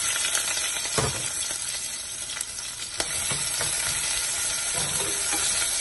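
Freshly added sliced onions sizzling in hot ghee and oil in the base of a pressure cooker, a steady hiss, while a wooden spatula stirs them and knocks against the pot a few times.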